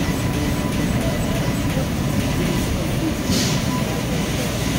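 4 kW fiber laser cutting machine running: a steady mechanical rumble with a faint steady whine, and a short hiss a little over three seconds in.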